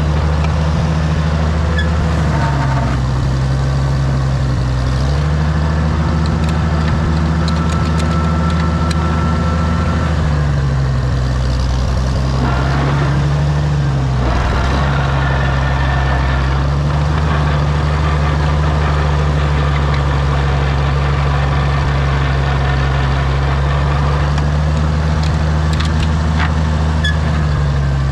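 Oliver OC-6 crawler tractor's engine running steadily, its speed dropping and picking up again a few times, with faint scattered clicks over it.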